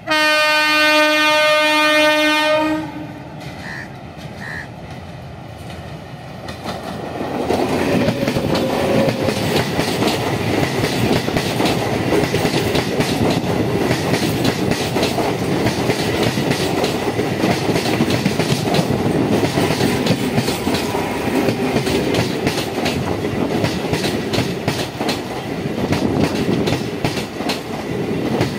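ICF MEMU electric train sounds one long horn blast lasting under three seconds. From about seven seconds in it runs close past, the wheels clacking over the rail joints under the steady rumble of the coaches.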